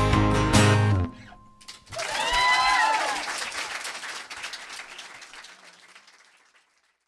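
The end of a song: the music stops about a second in, then applause and a cheer fade out over the next few seconds to silence.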